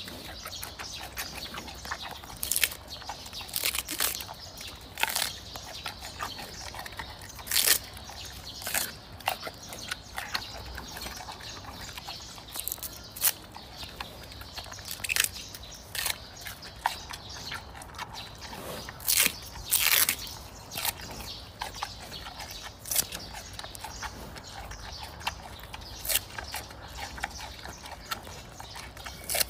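Giant panda chewing a bamboo shoot: irregular crunches and snaps of the fibrous shoot between its teeth, with the loudest crunches about eight seconds in and again around twenty seconds.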